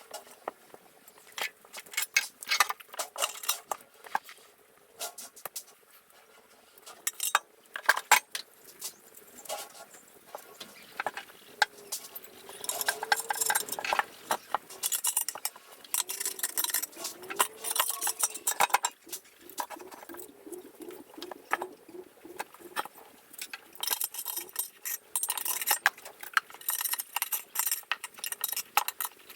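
Irregular metallic clinks, taps and knocks of hand tools on metal, with some scraping in the middle and a run of quick ticks, about four a second, a little after the middle.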